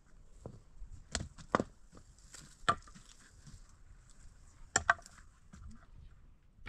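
A handful of sharp knocks at irregular intervals, with two close together about five seconds in.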